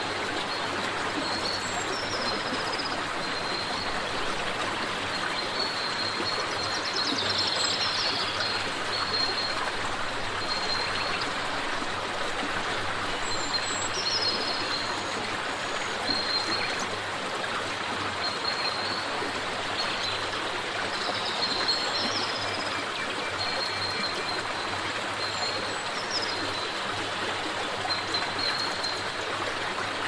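River water running over stones, a steady rushing, with small birds giving short high chirps again and again.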